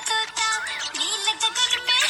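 Music: a bright instrumental passage of a children's song, with quick high notes sliding up and down.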